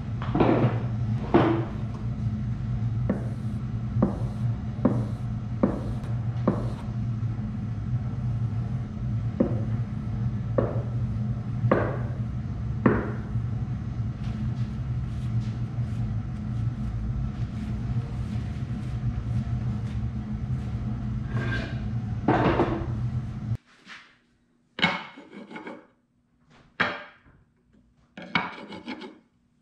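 Steel plane iron being honed back and forth on a sharpening stone: a steady rubbing with a low hum under it and light clicks about once a second. It cuts off suddenly about 24 seconds in, giving way to a few short knocks and scrapes of cherry boards handled on a wooden bench.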